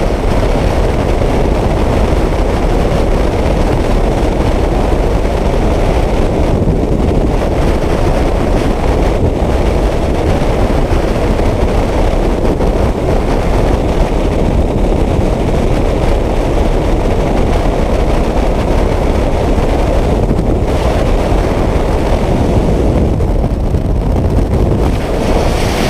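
Loud, steady rush of freefall wind buffeting a skydiver's camera microphone, strongest in the low range with no let-up.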